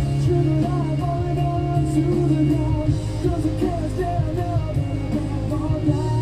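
Background rock music with electric guitar and a sung vocal line.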